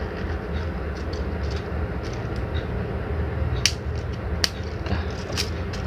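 Three sharp plastic clicks about a second apart in the second half as a Mini 4WD's plastic chassis and parts are snapped together and handled, over a steady low rumble.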